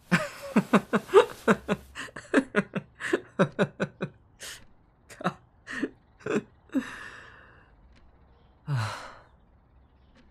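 A man's wordless vocal sounds: a quick run of short, pitched breathy bursts for about four seconds, then a few scattered ones. A long breath out follows, and then one last short sound.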